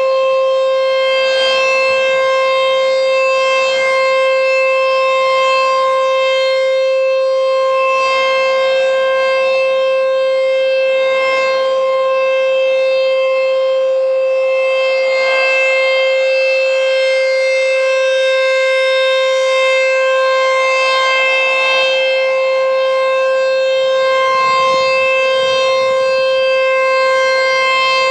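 American Signal T-128 outdoor warning siren sounding a steady tone during its monthly test. The pitch holds level without any rise or fall, and its overtones ring clearly above the main note.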